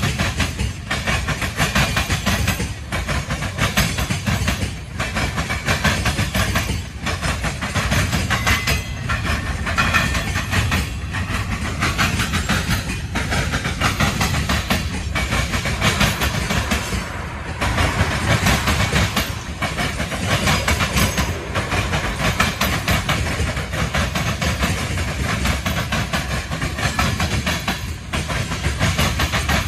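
Freight cars of a CSX manifest train, tank cars then covered hoppers, rolling steadily past. Their steel wheels clack repeatedly over the rail joints.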